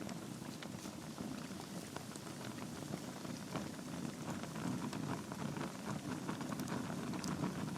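Wood fire burning in a fireplace, crackling steadily: a low rush of flames under many small, sharp, irregular pops and snaps from the logs.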